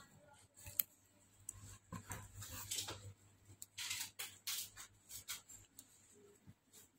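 Plastic protective film and packaging crinkling, with light taps and clicks, as a phone replacement screen assembly is handled. The sounds come as a string of short irregular rustles.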